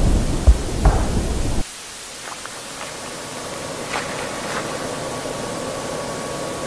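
Television static hiss. For about a second and a half it rides over a low rumble with a couple of thumps. The rumble then cuts off suddenly, leaving a quieter steady hiss.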